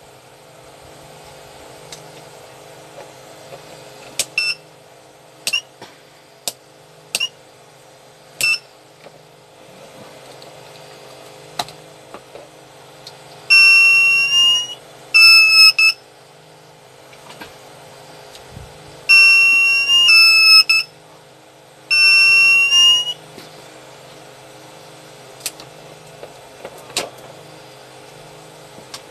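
Power inverter's piezo buzzer beeping its alarm: a handful of short chirps, then four longer, loud high beeps between about 13 and 23 seconds in. It is the low-battery warning; the battery feeding the inverter is run down. A steady low hum runs underneath.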